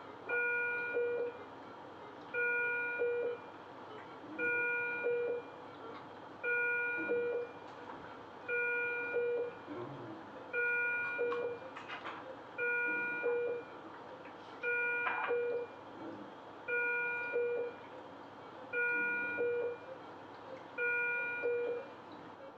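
ICU bedside patient monitor alarm: a chime of several tones, each about a second long, repeating evenly about every two seconds.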